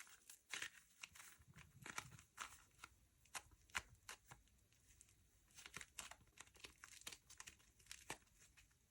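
Slime being worked by hand, giving faint, irregular sticky clicks and crackles.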